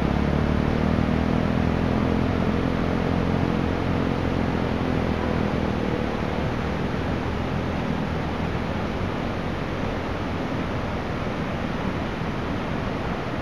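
Steady rushing of a river in flood, brown floodwater pouring past a washed-out road. A low steady hum under it fades away over the first several seconds.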